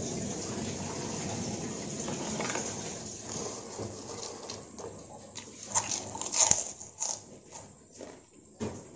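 A person eating fried rice vermicelli: chewing and mouth noises, then in the second half a run of sharp clicks and scrapes of a metal spoon in a plastic bowl, loudest around six seconds in.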